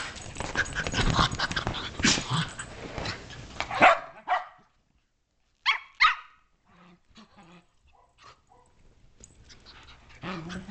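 Shetland sheepdog puppies play-fighting: growling and scuffling for the first few seconds, then two sharp, high barks about six seconds in, followed by quieter scuffling that builds up again near the end.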